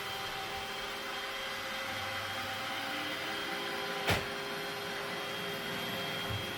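Roomba robot vacuum running: a steady whir with a motor whine, and one sharp knock about four seconds in.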